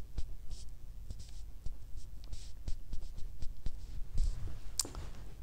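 Soft rustling and scratching with many small scattered clicks, from hands at work and a paper tissue wiped over the fingers close to a clip-on microphone; one sharper click shortly before the end.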